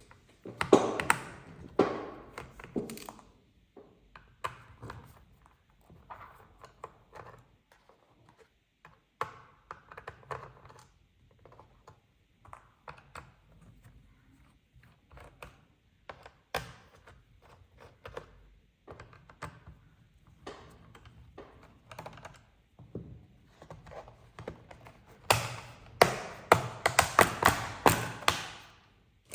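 Hands and small tools working on a laptop's plastic case, making scattered clicks, taps and knocks, with dense runs of rapid clicking at the start and again near the end.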